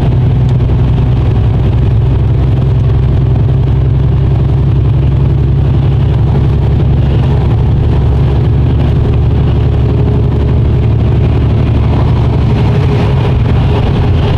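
Steady drone of a lorry's diesel engine and its tyres on a wet motorway, heard from inside the cab while driving at speed.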